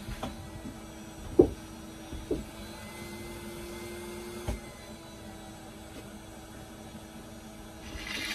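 A few sharp knocks from work on a van's roof, the loudest about a second and a half in, over a steady low hum. A short rushing noise comes near the end.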